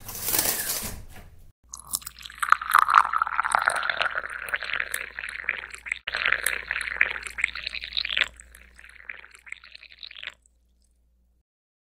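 Coffee pouring in a thin stream into a ceramic mug: a steady splashing trickle that stops about ten seconds in. A short rushing noise comes first, in the opening second.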